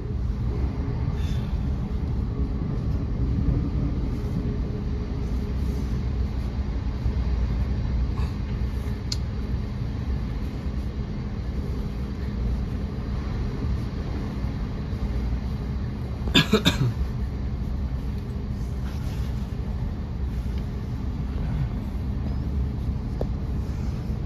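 Steady low rumble of a Thameslink electric multiple-unit train running, heard from inside the carriage, with a quick run of sharp knocks about two-thirds of the way through.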